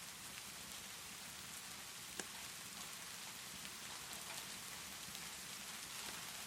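Steady rainfall with a crackling fireplace mixed in: scattered small crackles over the rain, and one sharper pop about two seconds in.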